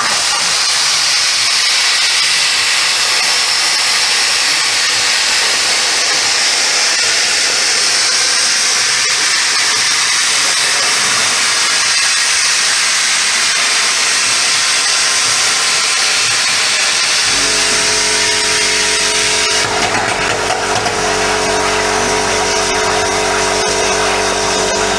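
Homemade CNC plasma cutter cutting: a loud, steady hiss that starts suddenly. About two-thirds of the way through, a steady hum joins it.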